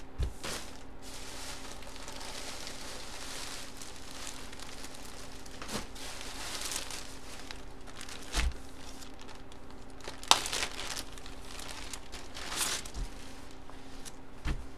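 Clear plastic packaging crinkling and rustling as it is handled and opened, with a few sharper crackles, the loudest about ten seconds in. A faint steady hum sits underneath.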